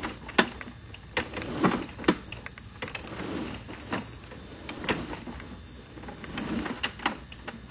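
Sewer inspection camera and its push cable being pulled back through a lined drain pipe: irregular clicks and knocks, with a low rumble between them.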